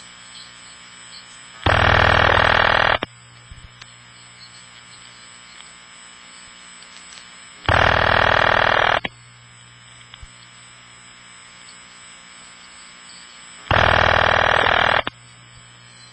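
Telephone ringback from a Bell System step-by-step community dial office, the newer CDO ring: three buzzy rings, each about a second and a half long, about six seconds apart, over steady line noise and hum.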